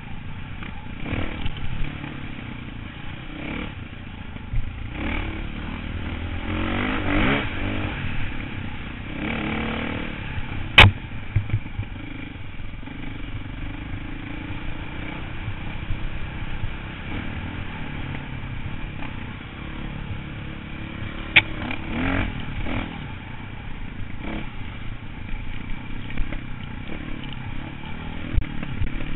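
Dirt bike engine revving up and down as it rides a trail, heard from the rider's helmet. Two sharp knocks stand out, about a third of the way in and again about two-thirds through.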